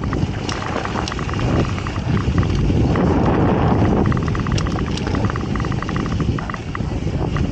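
Mountain bike rolling fast down a dry dirt trail: wind buffeting and tyres rumbling over loose gravel, louder for a couple of seconds near the middle, with the rear freehub clicking rapidly while the rider coasts.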